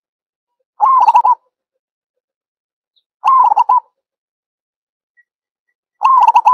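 Zebra dove cooing: three short phrases of rapid warbled coo notes, each about half a second long and about two and a half seconds apart. It is a recorded zebra dove call used as a lure call.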